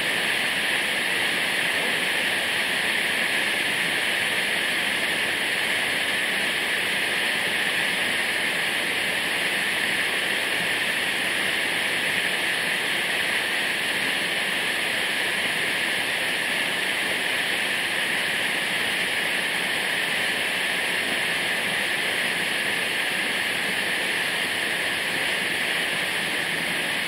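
Waterfall: a steady, unbroken rush of falling water that does not change throughout.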